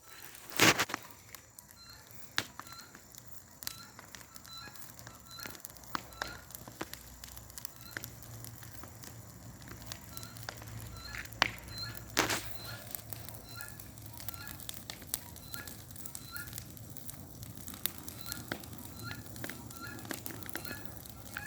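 Bonfire of dried coconut palm fronds burning, crackling with many sharp snaps. Loud pops come about a second in and again around eleven to twelve seconds in.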